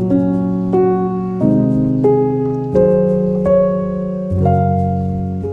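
Background piano music: a slow melody of single notes, one struck about every 0.7 s and left to fade, over held lower chords.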